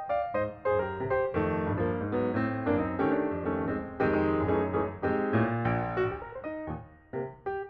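Background piano music, a melody moving through several notes a second.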